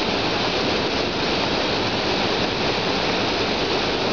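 Steady rushing of falling or running water from the enclosure's water feature, an even hiss with no change in level.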